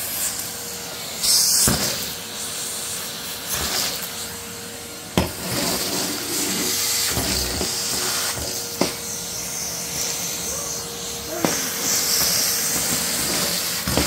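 Henry vacuum cleaner running: a steady suction hiss with a faint steady whine. Every few seconds comes a sharp knock or rattle as the metal wand hits the wooden floor and sucks up pieces of crisps.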